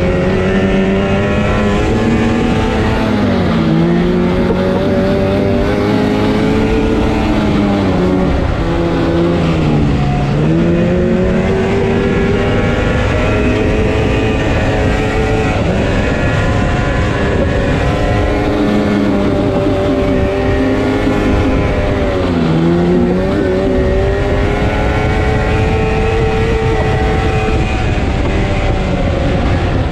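Yamaha Phazer snowmobile's two-stroke twin engine running at speed. Its pitch holds steady, then drops sharply and climbs back three times, about 3, 10 and 22 seconds in.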